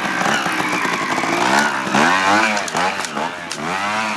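Trials motorcycle engine revved in short throttle blips as the bike climbs a rocky step, its pitch rising and falling about four times in the second half.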